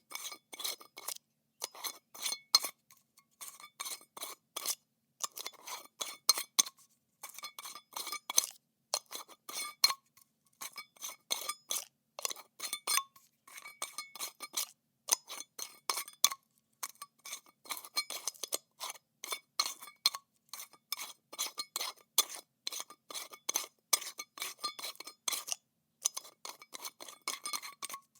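Metal lid being screwed onto and unscrewed from a glass jar, over and over: short runs of clicking, grinding scrapes as the lid threads turn against the glass, broken by brief pauses.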